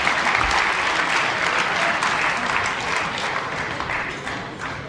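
Audience applauding a point just won, many hands clapping, fading away over the last couple of seconds.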